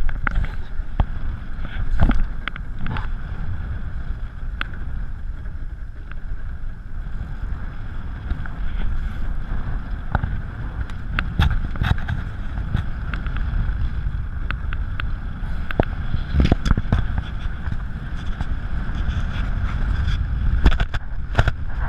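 Wind buffeting the microphone and water rushing past an International Moth sailing dinghy under way, a steady rumbling noise with a constant hiss. Scattered sharp clicks and knocks come through the rush throughout.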